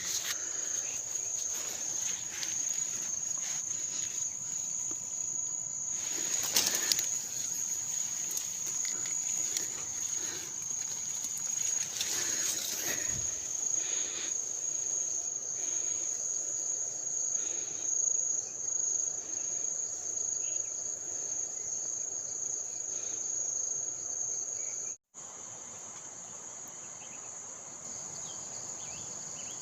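Forest insects, cicadas or crickets, droning in one steady high-pitched tone, with a few brief rustles or knocks near the start. The drone cuts out for an instant about 25 seconds in, then carries on.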